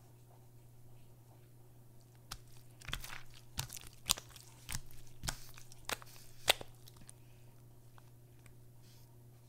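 Hands squeezing and stretching a glossy slime, giving a run of sharp wet pops and crackles. The sound starts quietly while the slime is still being poured, and the pops come irregularly for a few seconds from about two seconds in before dying away.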